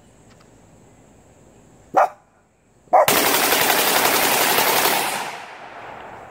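AR-15 in .300 Blackout with a bump fire stock: a single shot about two seconds in, then a second shot a second later that runs straight into a rapid burst of bump-fired shots lasting about two seconds, which then fades away.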